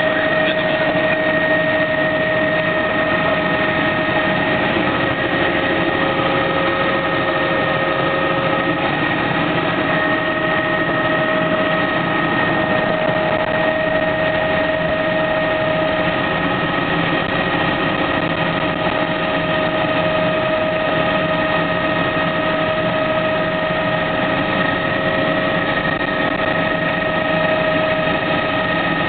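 Helicopter engine and rotor noise heard from inside the cabin: a steady drone with a constant high whine, through lift-off and climb.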